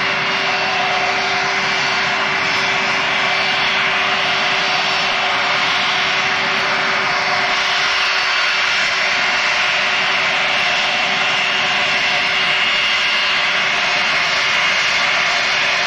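Boeing 707 freighter's four jet engines running steadily at taxi power as the aircraft rolls and turns. A loud, continuous whine with a steady hum over rushing noise, with no change in power.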